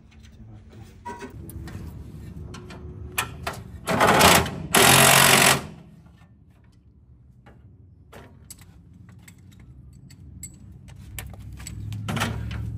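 Power drill tightening the mounting bolts of a new radiator, in two short bursts about four and five seconds in and another starting near the end, with light clicks of tools and parts between them.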